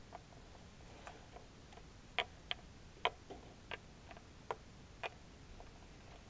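Light, irregular clicks and taps of small plastic Littlest Pet Shop figures being hopped and set down by hand on a windowsill, about ten in all, over a faint hiss.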